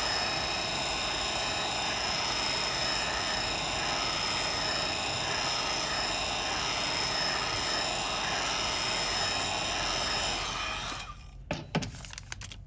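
Heat gun blowing steadily, a fan whir with a constant whine, heating the phone to soften the adhesive before prying; it switches off about eleven seconds in, followed by a few light clicks and taps.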